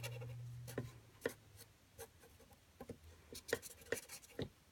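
Pencil drawing on paper: short, irregular scratchy strokes as an area is roughly filled in.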